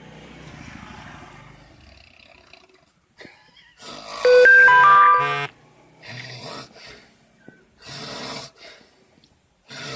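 A sleeping person snoring: a low rumbling snore at first, then harsh snores about every two seconds. A short jingle of stepped notes is briefly heard about four seconds in, louder than the snoring.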